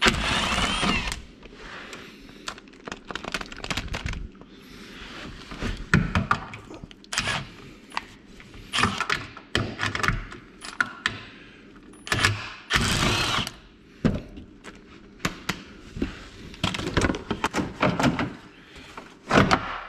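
Irregular knocks, clanks and scraping of tools on bolts and metal as the rear skid plate of a Yamaha YXZ1000R is unbolted and pulled off, with two harsher stretches about a second long, one at the start and one around thirteen seconds in.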